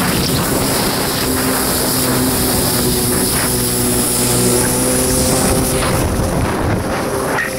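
1993 Kawasaki 650SX stand-up jet ski's two-stroke twin engine running at a steady speed while under way, with water rushing past the hull.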